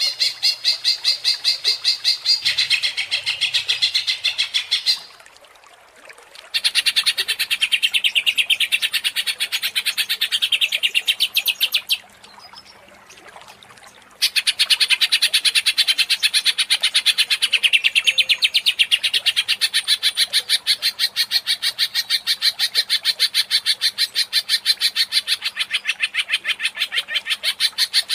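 Greater green leafbird (cucak ijo) singing a fast run of rapidly repeated chattering notes, several a second, in the 'ngentrok' style. The song breaks off twice, for a second or two each time, then resumes.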